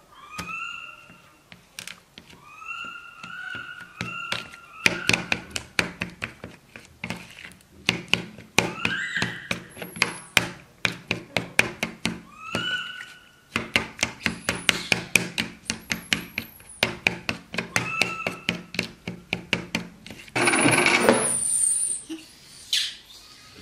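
A spoon clinking and scraping against a bowl in quick, uneven taps as banana is mashed into yogurt and condensed milk, while a hungry baby monkey cries out several times in short, high, rising calls. Near the end, a noisy rush lasts about two seconds.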